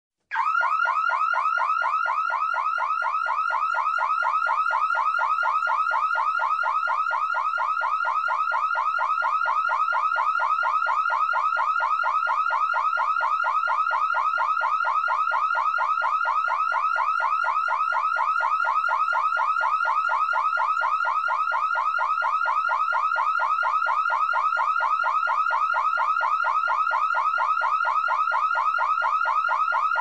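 Electronic security alarm siren sounding continuously: a loud, steady, rapid warble of identical pitch sweeps repeating several times a second, starting about half a second in.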